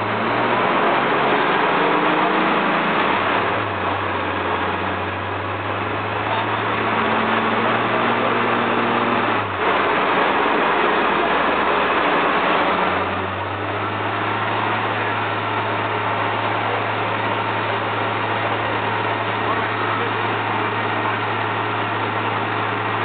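A VR Commodore's stroked 4.3-litre Buick-based V6 running at a steady speed on a chassis dyno. Its note holds level, stepping in pitch a few times with a brief sharp break near the middle.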